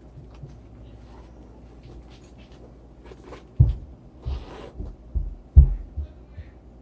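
Handling noise from a leather handbag being worked on: quiet at first, then from about three and a half seconds in, a handful of dull knocks and a brief rustle.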